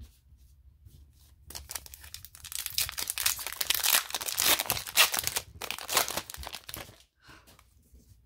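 Trading-card pack wrapper being torn open and crinkled by hand: a dense crackle that starts about a second and a half in, lasts about five seconds, then dies away.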